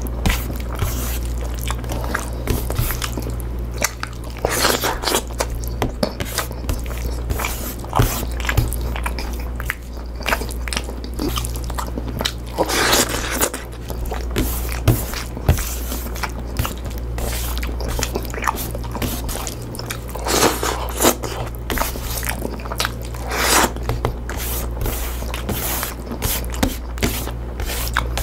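Close-mic eating sounds: a person biting and chewing mouthfuls of pinakbet, with soft wet chewing clicks and a few louder bites, over a steady low hum.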